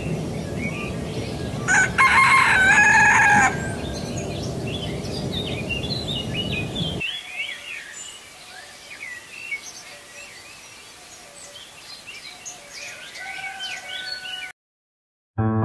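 A rooster crows once, a loud call of about two seconds near the start, over a steady background noise and many small birds chirping. The background noise stops about seven seconds in, leaving the chirping.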